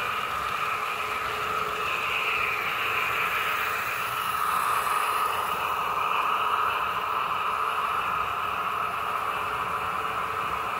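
Märklin H0 DB VT 11.5 TEE multiple-unit model running on metal track: a steady whir of motor and wheels on the rails, a little louder about halfway through as the power car passes.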